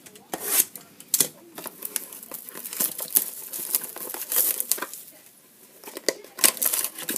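Clear cellophane wrapper on a mini box of trading cards crinkling and tearing as it is pulled open, in irregular crackles with a quieter spell about five seconds in.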